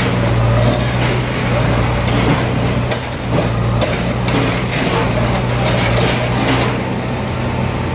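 Diesel engines of backhoe loaders running steadily under load while demolishing a brick building, with intermittent clanks and crashes of breaking masonry and debris.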